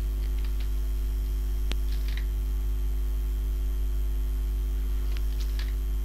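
Steady low electrical mains hum on the recording, with a few faint mouse clicks; the sharpest click comes just under two seconds in.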